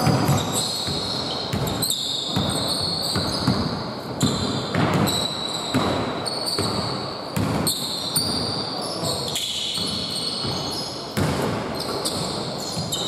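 Basketball game sounds in a large gym hall: sneakers squeaking in short, repeated, high chirps on the hardwood court, mixed with the knocks of a basketball being dribbled.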